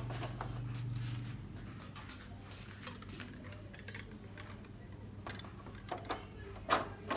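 Faint clicks, taps and handling sounds of a TV's LCD panel being set down into the plastic locks of its frame, a few sharper clicks near the end. A low hum runs for the first second or so.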